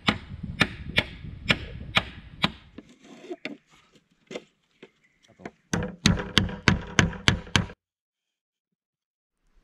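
Repeated blows of a tool on wood, sharp and evenly spaced at about two a second, thinning to a few scattered knocks, then a faster run of strikes that stops abruptly, followed by silence.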